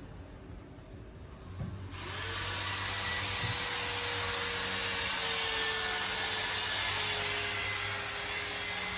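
A steady rushing machine noise starts abruptly about two seconds in and holds, with a faint hum and a single held tone underneath.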